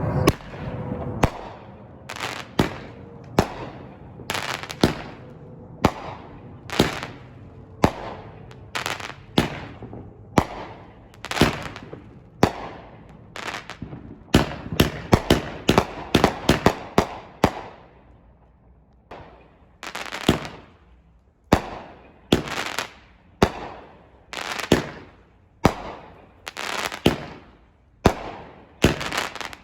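Fireworks going off one after another: aerial shells bursting about once a second, each bang trailing off. There is a rapid cluster of bursts in the middle, then a brief lull before the bangs resume.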